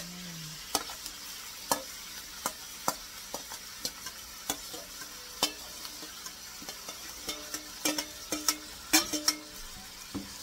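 Oil sizzling in a frying pan as shredded chicken is dropped onto sautéed onion and garlic, with repeated sharp clinks of a metal spoon against a stainless steel bowl as the chicken is scraped out.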